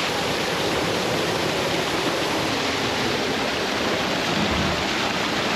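Waterfall pouring into a lagoon: a steady, even rush of falling water.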